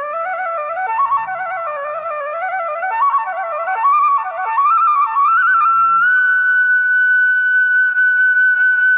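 Background music: a quick melody moving in two parallel lines, settling about six seconds in on one long held high note.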